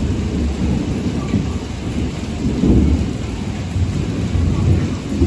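Rain falling, with a loud, uneven low rumble underneath that rises and falls.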